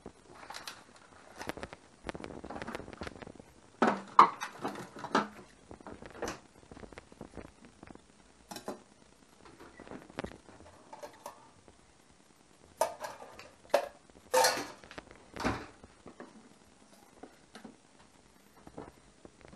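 Kitchen utensils and dishes being handled: scattered clinks, taps and knocks, with the busiest clusters about four seconds in and again around thirteen to fifteen seconds in.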